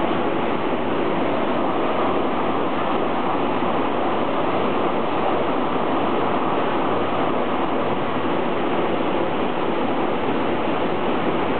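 Steady rushing noise at an even level throughout, with no distinct events.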